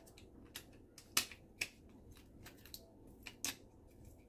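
Scattered sharp clicks and taps of small hard RC-car drivetrain parts being handled and fitted together: the spool assembly going back into the car. Three stronger clicks stand out among fainter ones.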